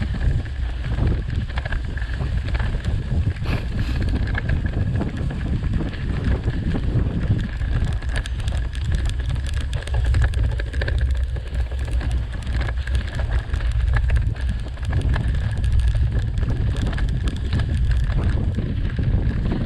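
Wind buffeting a GoPro's microphone on a bicycle ridden offroad: a constant low rumble, with many small clicks and rattles from the bike on rough ground and a faint steady high whine.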